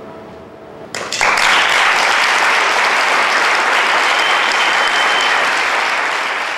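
Audience applauding: many hands clapping, breaking out about a second in and holding steady.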